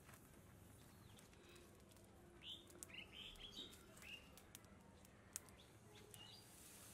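Faint bird chirps: a quick run of short, falling calls in the middle, and one more near the end. A few faint clicks come through, the sharpest about five seconds in.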